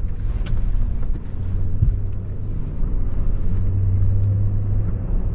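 GMC Sierra pickup driving slowly along a rough dirt track, heard from inside the cab: a steady low engine and road rumble, with a few short knocks and rattles.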